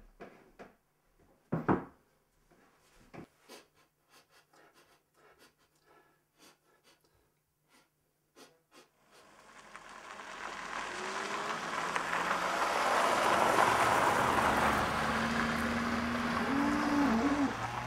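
Scattered light knocks and clicks of someone moving about a quiet room. About ten seconds in, a rushing noise swells up over a few seconds and holds, with a low pitched call that bends in pitch near the end.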